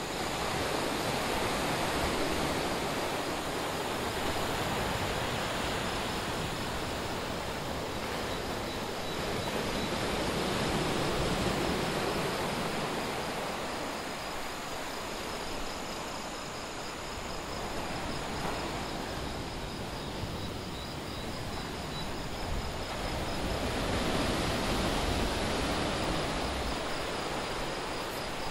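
Atlantic surf breaking on a beach, a steady rush of waves that swells and eases every several seconds. Over it runs a steady high trill of night insects.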